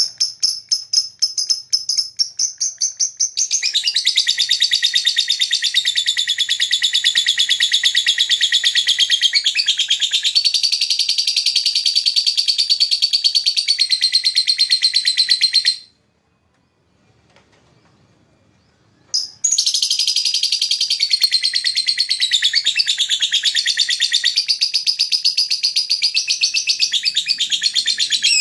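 Lovebird's long, rapid chattering trill (the ngekek song). It begins with quick separate chirps, runs into an unbroken high trill for about twelve seconds, stops for about three seconds, then starts a second long trill.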